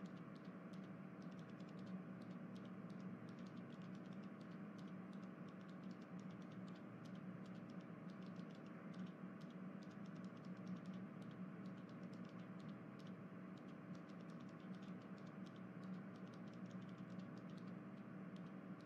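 Faint, rapid, irregular clicking like keyboard typing, over a steady low hum.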